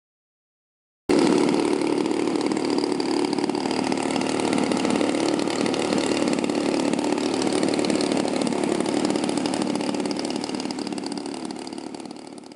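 Petrol engine of a large RC model plane running at a steady speed, starting abruptly about a second in and easing slightly near the end.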